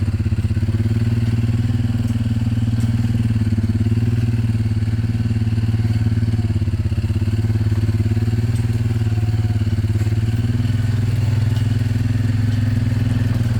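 An engine running steadily at one constant speed, a loud low hum with no change in pitch.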